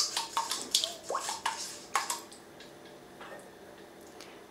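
Silicone spatula stirring a thin milky liquid in a stainless steel pot: a quick run of splashy scrapes and taps against the pot, which stops about two seconds in.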